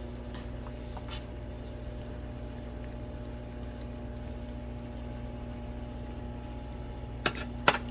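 Fried rice cooking in a pan: a steady low hiss and hum of frying, with two sharp clinks of a utensil against the pan near the end.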